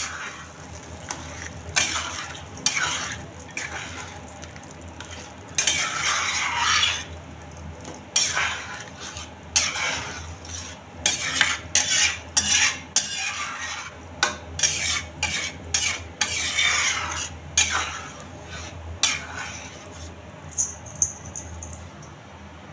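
Spoon stirring chickpea curry (chana masala) in a pan: irregular scraping and sloshing strokes through the thick gravy, coming quicker after about ten seconds, over a faint sizzle of the simmering gravy.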